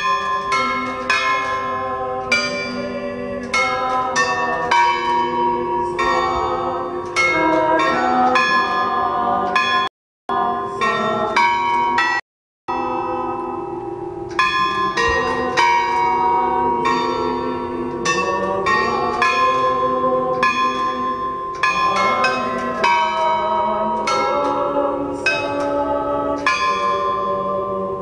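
Bronze bells on a steel bell monument being struck in turn, ringing out a tune of overlapping notes that starts suddenly at the press of the inauguration button. The sound cuts out twice briefly, about ten and twelve and a half seconds in.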